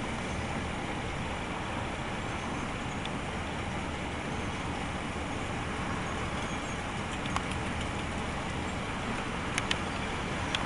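Steady low rumble of distant vehicles, with a few short sharp clicks in the last few seconds.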